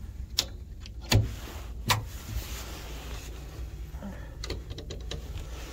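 Three sharp knocks, then a cluster of lighter clicks about four and a half seconds in, from someone handling fittings and moving about in a small boat. A low steady rumble runs underneath.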